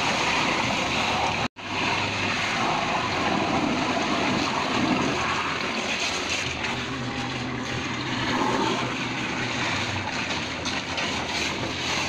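Water gushing steadily from an open pressurised water line into a muddy dug hole. The sound drops out to silence for an instant about one and a half seconds in.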